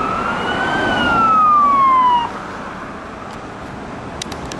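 Police car siren wailing: one sweep rising and then falling in pitch, which cuts off abruptly a little over two seconds in.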